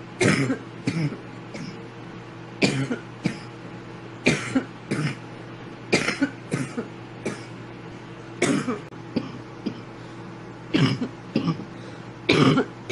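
A woman's coughing fit from inhaling bong smoke: short clusters of harsh coughs, two or three at a time, repeating every two seconds or so over a faint steady hum.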